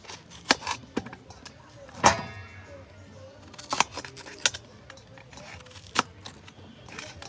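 Irregular sharp knocks and metallic clinks from cooking at a metal pot, about six in all; the loudest, about two seconds in, rings briefly like a struck pot.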